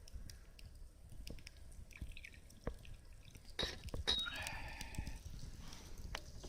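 Faint scattered crackles and ticks of a small campfire, with a short gurgling, dripping liquid sound about three and a half to five seconds in.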